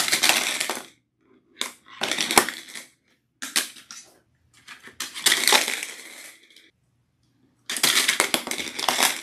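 Orange 2.5-inch plastic VEX IQ game discs clattering against the plastic parts of a disc dispenser as they are loaded by hand, in about six short bursts of rattling clicks with brief silences between.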